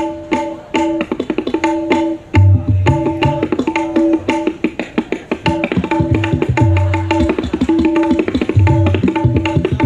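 Gendang (dangdut hand drums) played in a fast dangdut koplo rhythm: quick dense strokes, a ringing tuned high note recurring in a steady pattern, and deep booming bass strokes every second or so.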